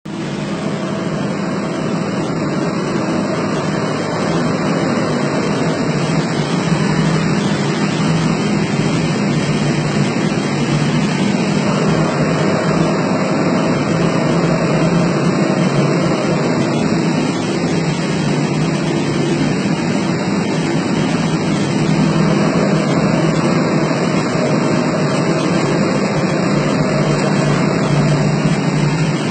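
Industrial boiler burner firing: a steady, loud roar with a low hum underneath.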